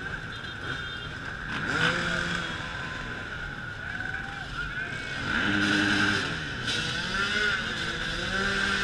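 A stream of enduro dirt bikes riding past one after another, their engines revving and rising and falling in pitch as each goes by. Louder passes come about two seconds in, around six seconds, and again near the end.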